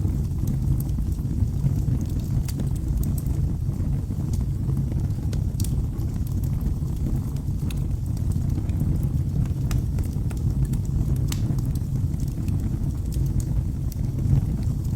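Wood fire burning in a fireplace: a steady low rumble of flames with irregular sharp crackles and pops scattered throughout.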